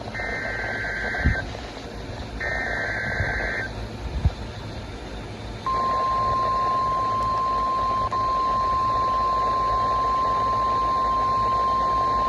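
NOAA Weather Radio Emergency Alert System signal heard through a radio receiver over hiss. Two buzzy bursts of digital SAME header data tones come first, and about six seconds in the steady 1050 Hz warning alarm tone begins and holds. The sequence marks the start of a new severe thunderstorm warning. A few brief low knocks come in the first few seconds.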